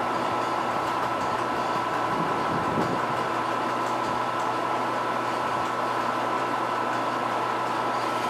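Sharp LMV-50 turret milling machine running steadily: a constant hum with a thin high whine.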